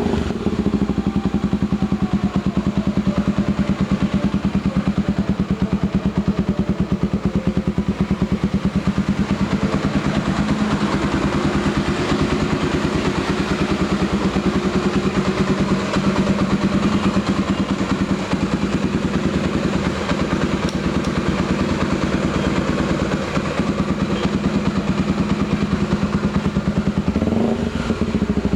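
Honda XR250 Tornado's single-cylinder four-stroke engine idling with a steady, even exhaust beat, with only slight changes in engine speed.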